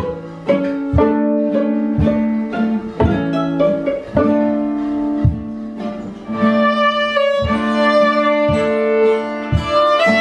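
Live string music: plucked notes about once a second over low held tones, joined about six seconds in by a sustained bowed string melody.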